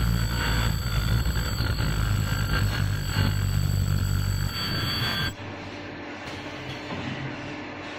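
Ultrasonic welding machine running: a steady high-pitched whine of several tones over a low hum, cutting off suddenly about five seconds in.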